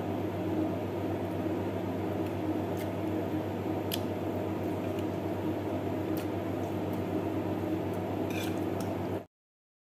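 Close-up chewing and mouth sounds of someone eating chicken adobo and rice by hand, with a few faint clicks, over a steady low hum. The sound cuts off suddenly near the end.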